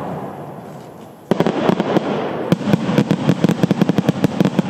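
Starmine fireworks: the rumbling tail of a shell burst fades, then a little over a second in comes a sudden loud shower of rapid, irregular crackling pops from glittering gold crackle stars.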